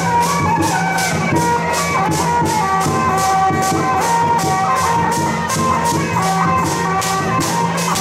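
Dragon dance accompaniment music: a steady beat of drums and cymbals, about three to four strikes a second, under a melody of held, stepping notes from a wind instrument.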